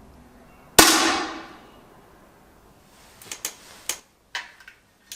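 A single shot from a 10 m air rifle about a second in: one sharp crack with a fading tail of about a second. A few lighter, sharp clicks follow from about three seconds on.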